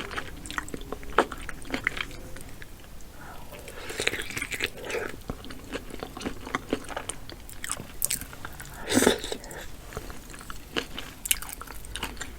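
Close-miked eating of a seafood boil: chewing and biting with wet smacks and quick clicks, and a louder wet burst about nine seconds in.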